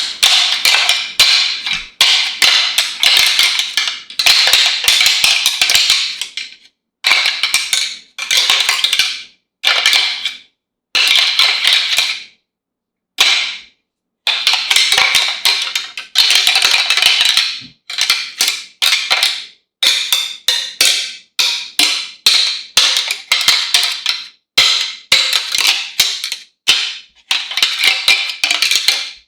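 Whitetail buck antlers clashing and rattling together in fast runs of sharp clicks, broken by brief silent pauses every few seconds: the antler rattle of bucks fighting, used as a buck call.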